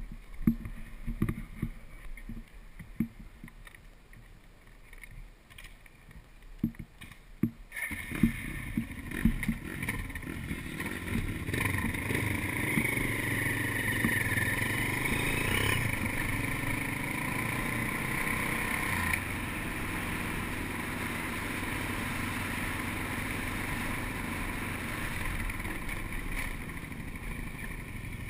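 Suzuki dual-sport motorcycle heard from the rider's camera: a few seconds of scattered knocks and low rumble while stopped, then from about eight seconds in the engine and wind noise of riding off along a gravel road, swelling and then holding steady.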